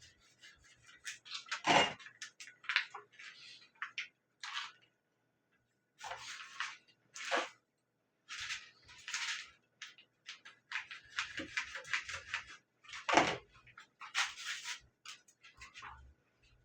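Plastic noodle packaging crinkling and rustling in short irregular bursts, with two louder knocks, one about two seconds in and one later on.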